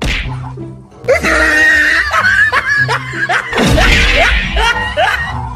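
Music with laughter over it; the laughter comes in loudly about a second in, in quick repeated rising bursts.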